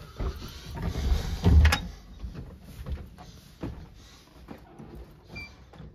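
Phone-handling rustle with scattered low thumps and a few short knocks as the phone is carried through a room, the loudest thump about a second and a half in.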